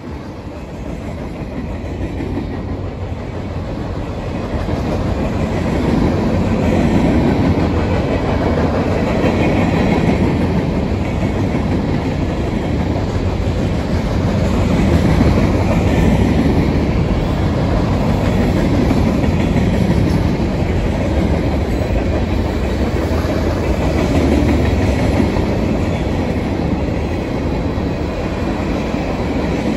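CSX freight train's cars rolling past at track side, a steady rumble of wheels on rail that grows louder over the first several seconds and then holds.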